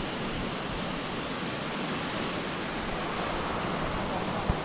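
Steady rush of flowing water, with one low thump near the end.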